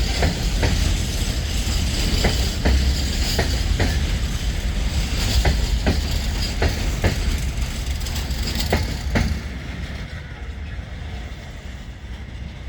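Freight train of open wagons rolling past, its wheels clicking over rail joints about twice a second over a steady rumble. About nine seconds in the clicking stops and the sound falls away.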